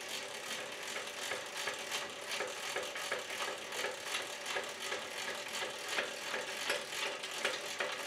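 Drill press table being cranked down its square column, the crank and lifting gear giving a steady run of rapid mechanical clicks and rattles.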